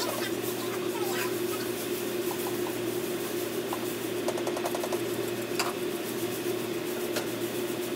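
Grill cleaner sprayed onto a hot flat-top griddle, sizzling and crackling as it flashes to steam. It sits over a steady mechanical hum, with a few sharp clicks.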